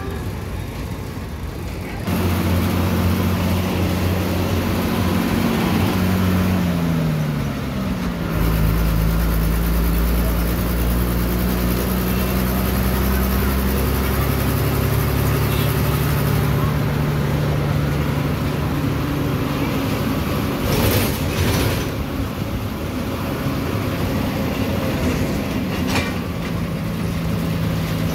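Bus engine running under way, heard from inside the cabin over road rumble. Its hum glides down in pitch about a quarter of the way in, then settles into a deeper steady drone. A couple of sharp knocks come about two-thirds through.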